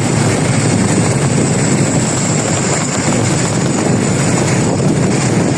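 Steady road vehicle noise, engine and tyres running at an even level with no horn sounding.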